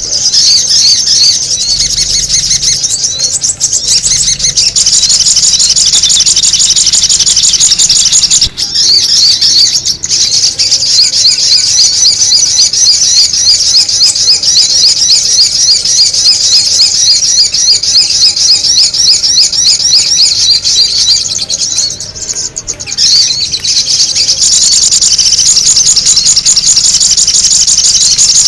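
Sogon bird's noisy, rapid high-pitched chattering calls, used as a bird lure, going on almost without a break and dropping away briefly about three-quarters of the way through.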